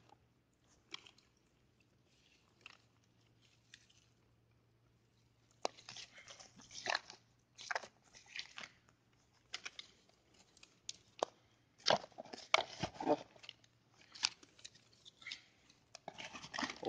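Irregular crunching and rustling of dry grass, reeds and litter being handled by hand: a few faint clicks at first, then frequent short bursts from about six seconds in.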